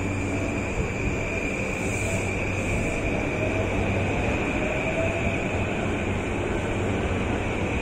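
Electric commuter train pulling out of the platform, its traction motors giving a faint whine that rises slowly in pitch as it accelerates, over a steady low rumble.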